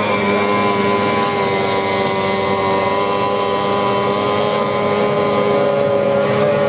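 Two-stroke engines of racing outboard hydroplanes running at speed: a steady, high-pitched whine of several engine notes that holds its pitch, with a slight bend near the end.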